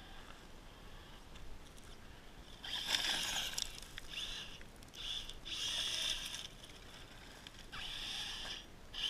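Radio-controlled 4x4 truck driven in short throttle bursts on loose gravel: motor and tyres scrabbling about five times, each burst a second or less with quieter gaps between. The loudest burst comes about three seconds in.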